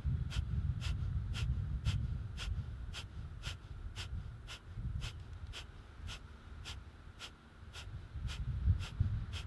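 Kapalbhati (breath of fire) breathing: quick, forceful exhalations through the nose at an even pace of about two a second, each a short sharp puff. A low rumble runs underneath.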